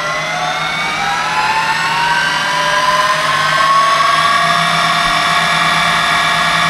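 Variable-speed metal lathe running up in high range: its headstock gearing and spindle whine, rising in pitch over the first few seconds, then holding steady at speed.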